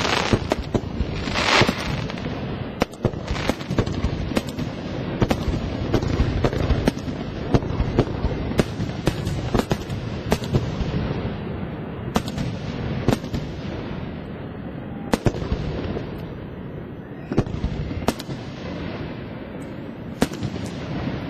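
Fireworks display: many aerial shells bursting in quick, irregular succession, sharp bangs over a continuous rumble of booms and echoes, easing off a little in the second half.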